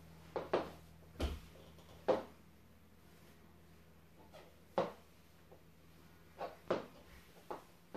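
Stiletto high heels clicking on a hard wooden-look floor: a few footsteps in the first two seconds, one with a dull thump, then a quiet gap and a few single heel taps spaced about a second apart.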